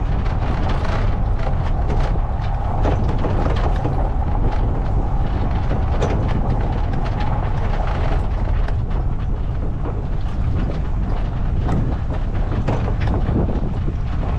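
Boat on its trailer being towed over a gravel road: a steady rumble with frequent rattles and knocks, and wind on the microphone. A steady hum runs underneath and fades out about eight seconds in.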